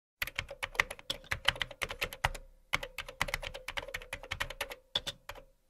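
Computer keyboard typing sound effect: a quick, uneven run of key clicks, several a second, with a short pause about halfway through. It matches text being typed onto the screen letter by letter.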